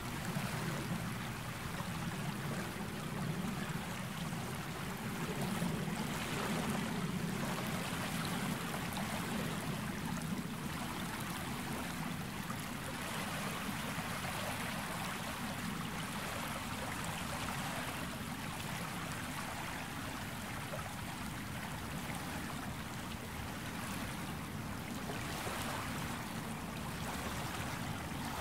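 Gentle sea waves washing onto the beach: a steady wash of water that swells a little every few seconds, with no large breaking crashes.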